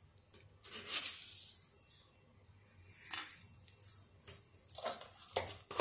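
Kitchen handling sounds of a blender jar and utensils: a brief swish about a second in, then scattered light knocks and clinks.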